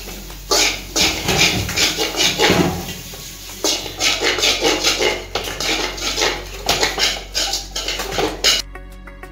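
Metal spatula scraping and clanking against a large metal kadai while stir-frying rice, in quick, uneven repeated strokes. The stirring stops about eight and a half seconds in.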